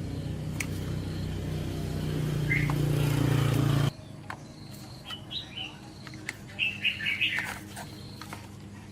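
A steady motor hum grows louder and cuts off suddenly about four seconds in. It is followed by a few birds chirping over quiet surroundings.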